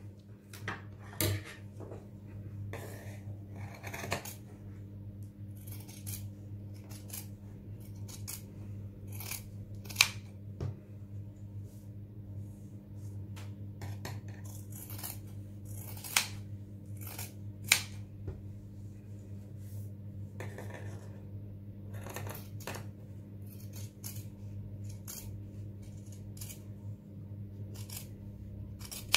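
Large steel tailoring scissors cutting through folded layers of cotton fabric: a string of irregular snips, with a couple of sharper clicks of the blades. A steady low hum runs underneath.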